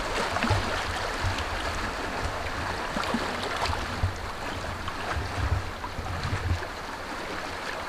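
Wind buffeting the microphone in uneven low gusts over a steady outdoor hiss, with a few faint ticks.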